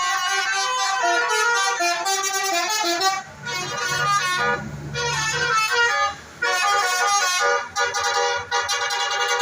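Tourist bus's 'telolet' Basuri multi-tone musical horn playing a quick melody of changing notes, breaking off briefly about three seconds in and again about six seconds in, with a stretch of engine rumble in the middle.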